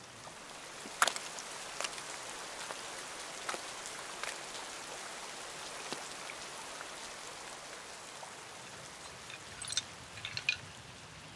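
Steady rain falling on leaves and wet ground, with scattered sharper drop taps, the sharpest about a second in. Near the end come a few soft handling ticks as a leather wrap is unrolled.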